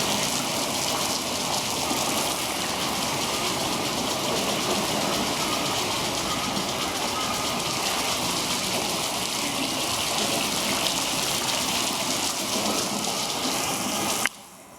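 Steady rushing, splashing water, an even hiss that cuts off suddenly near the end.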